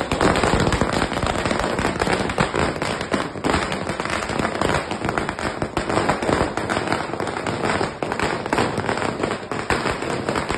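A long string of firecrackers (a ladi) going off on the road: a rapid, unbroken run of sharp bangs and cracks.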